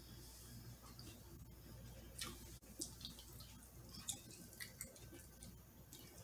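Faint close-up eating sounds: a mouth chewing grilled meat, with scattered short wet clicks and smacks at irregular moments.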